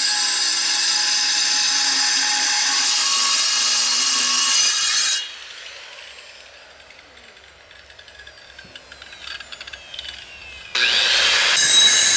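Angle grinder with a diamond blade cutting through a terracotta clay chimney flue liner, a loud high-pitched grinding. It stops abruptly about five seconds in; after a quieter gap with a few light knocks, it spins back up with a rising whine near the end and bites into the clay again.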